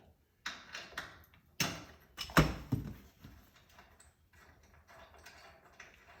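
Hands-on seat-removal work inside a truck cab: several knocks and clunks, the loudest a heavy thump about two and a half seconds in, then quieter scraping and rattling.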